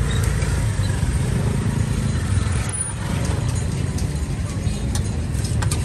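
Busy street-market ambience: a steady low rumble of vehicle engines under a general hubbub, with a few faint clicks near the end.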